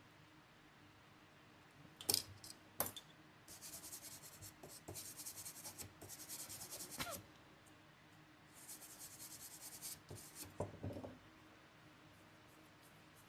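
A small tool scraping thick liquid-spill residue off a MacBook Pro logic board. Two sharp clicks about two seconds in, then two runs of fine scratching, the first a few seconds long and the second shorter, with a few light taps after the second.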